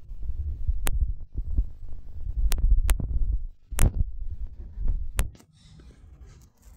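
Low throbbing rumble of buffeting on a phone's microphone, with five sharp clicks spread through it. The rumble drops away about five seconds in, leaving a faint hiss.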